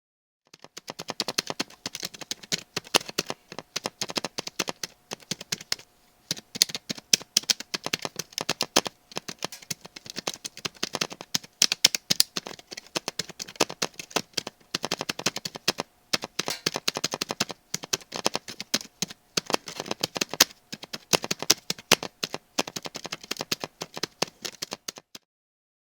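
Fast, continuous typing on a computer keyboard: a dense run of key clicks with brief pauses about 6 and 16 seconds in, stopping shortly before the end.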